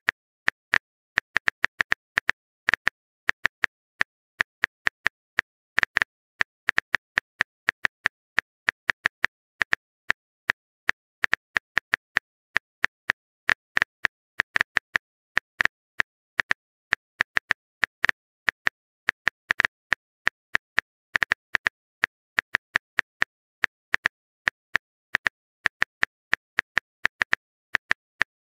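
Phone-keyboard typing sound effect: rapid, uneven clicks in bursts of several a second, with short pauses between the bursts.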